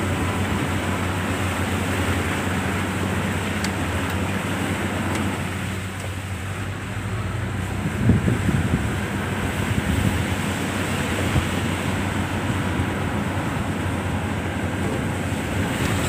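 A vehicle engine running steadily while travelling along a rough dirt road, with wind rushing over the microphone. A few louder knocks come about halfway through.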